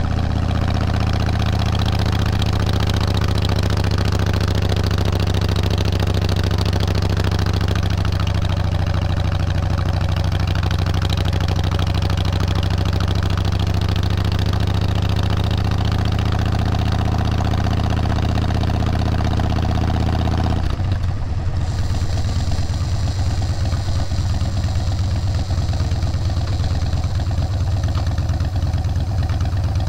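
Engine running steadily with a constant note. About two-thirds of the way through the sound changes abruptly and becomes rougher and more uneven.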